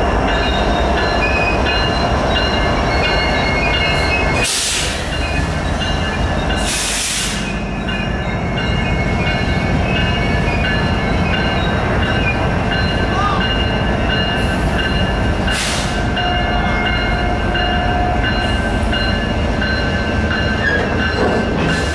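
Freight train rolling past close by: a steady rumble of flatcars clattering on the rails, with thin steady wheel squeal above it. A few brief hissing bursts come at about 4.5, 7 and 16 seconds in.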